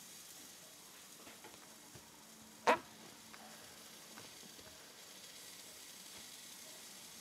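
Grouper steaks sizzling quietly on an indoor electric grill, a steady faint hiss with scattered small crackles and one sharp pop about two and a half seconds in.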